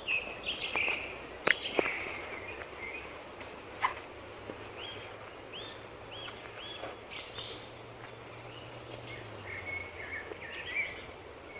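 Woodland birds singing, a run of short repeated chirping notes, with two sharp clicks or snaps early on and a faint low hum underneath.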